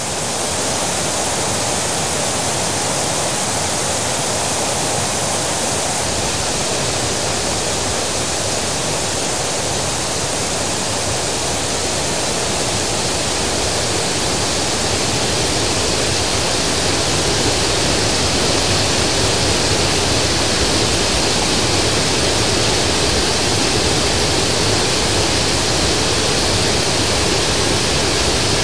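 Steady, even rushing of a large waterfall, a constant wash of falling water with no breaks.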